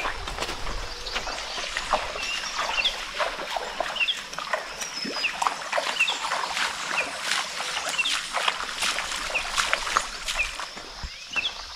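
Footsteps and rustling on a forest trail: irregular crunches and snaps underfoot. Short chirps repeat about once a second over a faint steady high hum.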